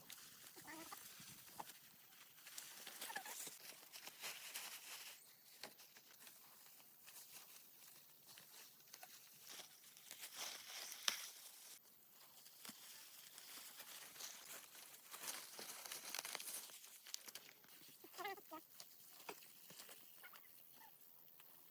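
Faint outdoor farm sounds: scattered rustles and clicks, with short animal calls about a second in and again near the end.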